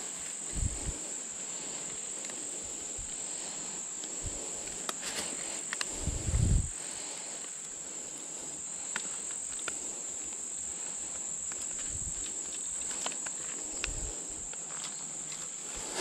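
Steady high-pitched drone of insects calling, with a few footfalls and rustles through brush and dead leaves, the heaviest about six seconds in.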